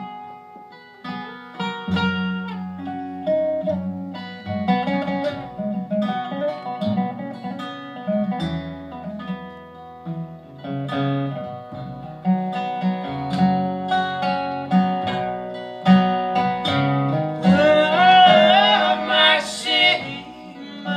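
Acoustic folk band playing an instrumental break: plucked acoustic guitar notes over a low bass line, with a wavering melody line coming in near the end.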